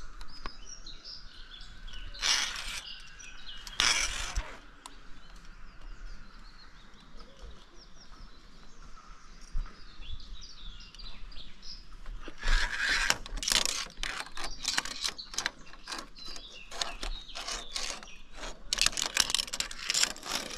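Songbirds chirping in the background, with two loud rustling scrapes about two and four seconds in and, from just past halfway, a dense run of clicks and scrapes close to the microphone.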